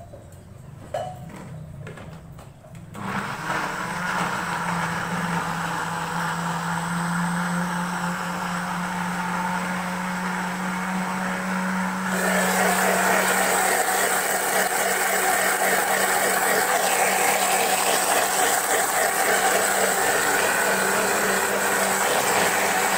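Electric countertop blender, after a few light knocks, starts about three seconds in and runs steadily, grinding a wet paste. About halfway through its sound turns suddenly louder and brighter.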